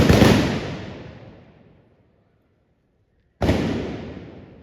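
Trabucs (blunderbusses) firing blank gunpowder charges. One shot goes off right at the start, hard on the heels of another, and its echo dies away over about two seconds. Another shot follows about three and a half seconds in.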